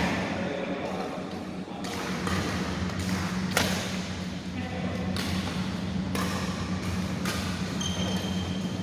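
Badminton rackets striking a shuttlecock in a doubles rally, sharp hits coming roughly once a second, over a steady low hum.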